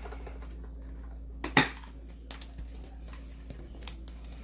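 Hard plastic of a handheld vacuum being handled: one sharp click or knock about a second and a half in, then a few faint light clicks and taps, over a steady low hum.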